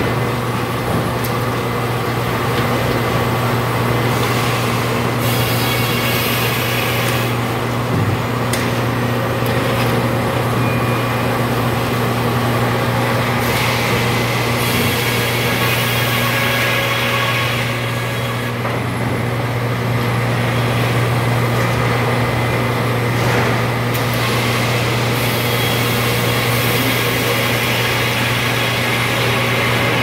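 Helle circular sawmill with top saw running, cutting a large red oak log: a steady low motor hum, with a higher rushing noise of the blades in the wood that swells and fades several times.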